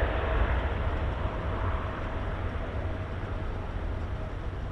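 Boeing 777-300ER's GE90 turbofan engines at takeoff thrust as the jet lifts off and climbs away: steady jet noise with a deep rumble and a faint steady whine, fading slowly.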